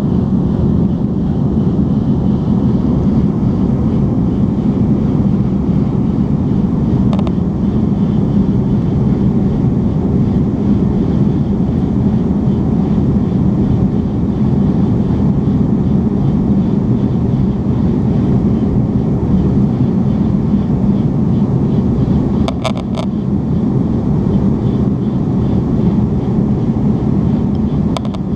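Steady cabin noise inside a TAROM Airbus A310-325 airliner in flight: an even low rumble of engines and rushing air, heard from a window seat over the wing. A few short clicks come about seven seconds in, and a small cluster of them about three quarters of the way through.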